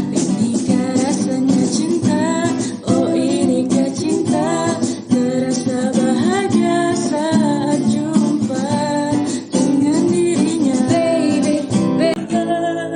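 A singer's voice over strummed acoustic guitar, performing a song.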